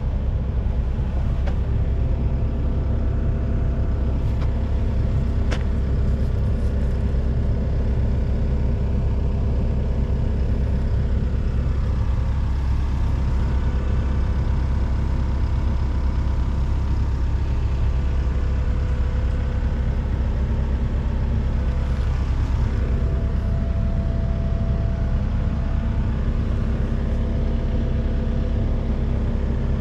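Volvo excavator's diesel engine running steadily, a low drone with steady higher tones over it; one tone shifts about two thirds of the way through.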